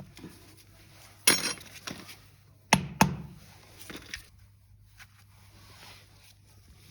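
Sharp clanks and knocks of metal tools or starter motor parts being handled: one about a second in, two close together near the middle, then lighter clinks.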